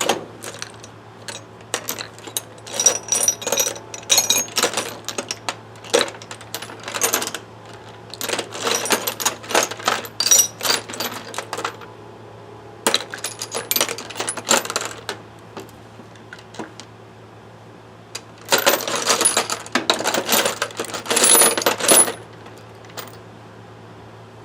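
Metal sockets and hand tools clinking and rattling against each other as they are rummaged through in a tool bag. The sound comes in bouts of a few seconds with short pauses between them.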